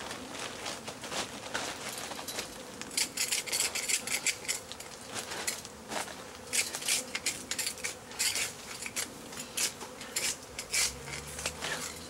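Long-handled scraping tool scraping and clinking against the inside of a sewer manhole in quick, irregular strokes, with bees buzzing around it.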